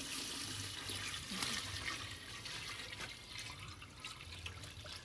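Palm nut soup liquid being poured, a steady splashing of liquid.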